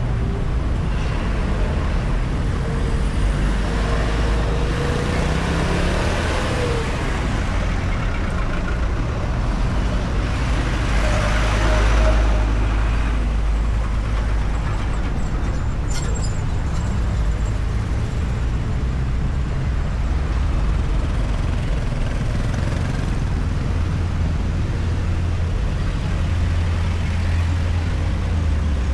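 Steady rumble of road traffic, with the engines and tyres of cars and heavier vehicles passing on a highway. One pass swells louder about twelve seconds in.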